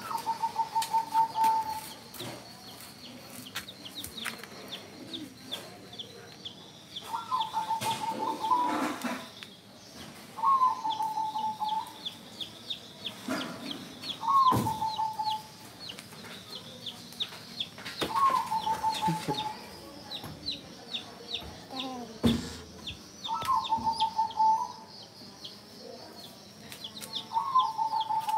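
Baby chicks peeping rapidly and almost without pause, with a lower, rattling trill-like call of about a second that comes back every three to four seconds, and a few soft knocks and thumps in between.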